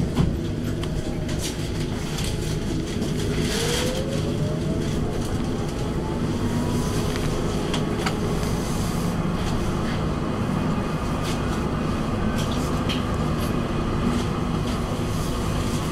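Electric tram pulling away from a stop: a whine rises steadily in pitch for about five seconds as it gathers speed, then it runs on with a steady rumble from the wheels on the rails and a few clicks.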